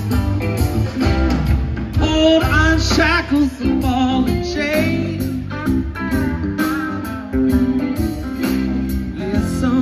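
Live rock band playing: electric guitars over bass, drums and keyboard, with a lead line of wavering, bent notes in the middle.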